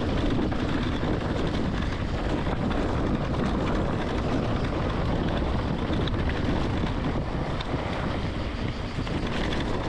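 Steady rush of wind buffeting the microphone of a camera riding along on an electric mountain bike moving down a dirt trail, mixed with rolling tyre and trail noise.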